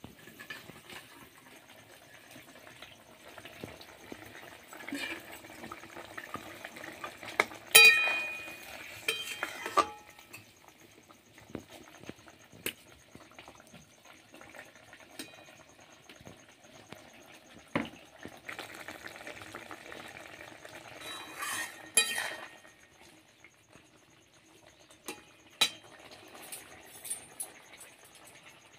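Metal spatula stirring and scraping in a metal kadai of bubbling fish curry, with clinks and sharp ringing clangs of metal on metal, loudest about 8 seconds in and again around 22 seconds, over a low sizzle of the simmering curry.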